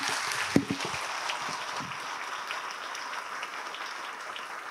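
Audience applause in a hall, a steady crowd clapping that slowly dies down.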